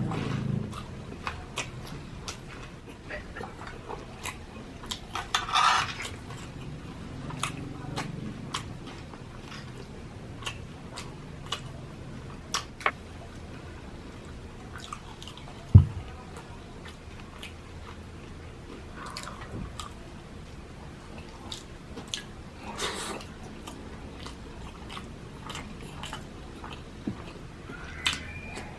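A person chewing and biting food, with scattered small clicks and smacks and one sharp knock a little past halfway.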